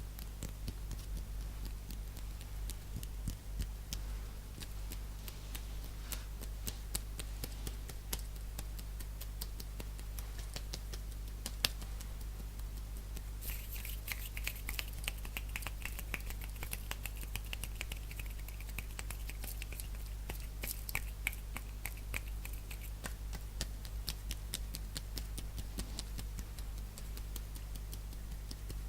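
Fast hand sounds close to a sensitive microphone: quick, irregular finger and nail taps clicking throughout. From about 13 to 23 seconds in, a hissier rubbing or fluttering of the hands joins the taps. A steady low hum runs underneath.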